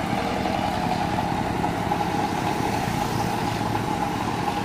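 A road vehicle's engine running steadily, with street traffic noise.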